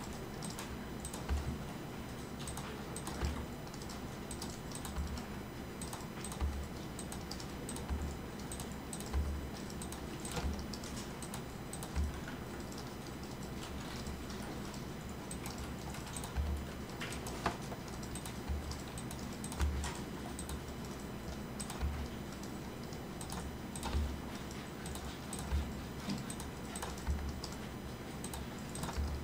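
Irregular clicks from a computer keyboard and mouse, roughly one every second or two, many with a dull low thud, over a steady faint background noise.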